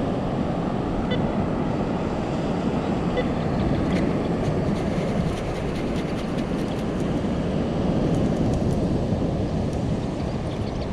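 Steady low rushing of wind buffeting the microphone over the wash of surf. Light clicks and rattles from sand being scooped run through the middle, with a few faint short beeps near the start.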